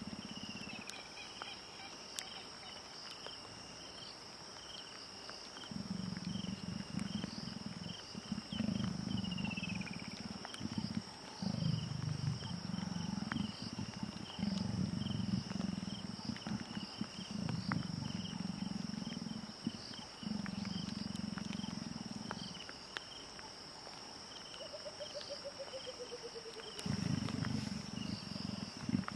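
Leopards growling, a courting pair: long, rasping, low-pitched growls that start about six seconds in and come in runs for some fifteen seconds, then again near the end. A steady shrill chirring of insects runs under them.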